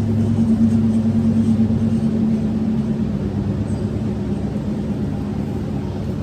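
A steady low machine hum with a constant drone, unchanging throughout.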